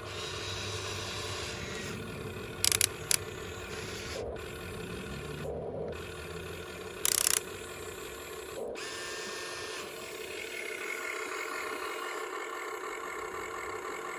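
Small electric gear motors of a remote-control toy excavator whirring as it drives and works, with a few sharp, loud clicks: two about three seconds in and a longer one about seven seconds in.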